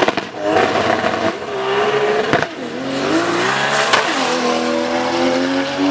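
Modified drag car's engine accelerating hard down the strip. Its pitch climbs, drops at a gear change about two and a half seconds in, climbs again and drops at a second shift about four seconds in, then pulls on.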